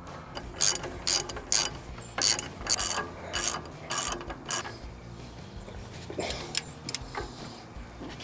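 Hand ratchet wrench clicking in a run of short back-strokes, about two a second, fewer and fainter after about five seconds, as bolts on a truck's front brake caliper are run down.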